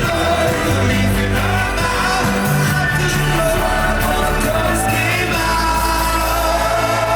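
Live rock band playing at full volume: bass, drums and guitar under a male lead vocal, with shouts from the crowd.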